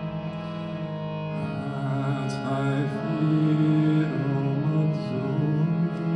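Live music: a steady held drone with a voice singing or chanting over it, growing louder about a second and a half in.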